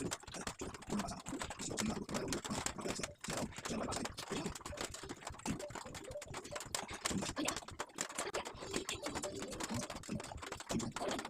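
Rapid, irregular light clicking and tapping, like small hard objects striking one another.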